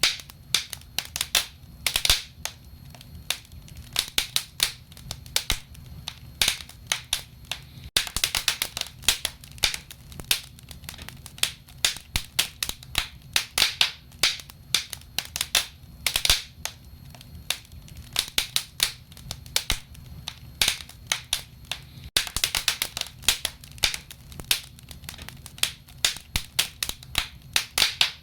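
Wood fire in a fireplace crackling: irregular sharp snaps and pops, often in quick clusters, over a faint low rumble of the burning logs.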